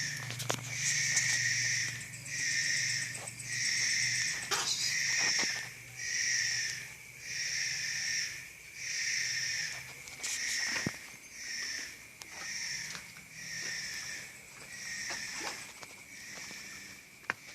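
A rhythmic hissing sound, one hiss about every second, each lasting under a second.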